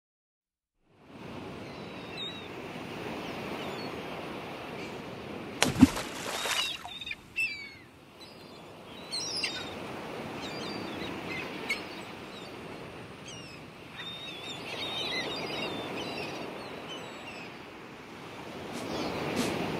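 Seashore ambience of waves washing in slow swells, with birds calling over it. It starts after about a second of silence, and a loud sharp bang comes about six seconds in.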